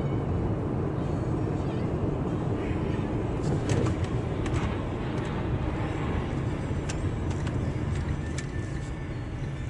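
Steady rumble of a moving road vehicle, with scattered sharp clicks and knocks from about three and a half seconds in.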